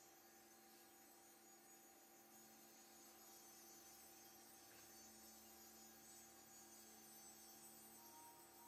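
Near silence: a faint steady electrical hum, with a faint higher tone near the end.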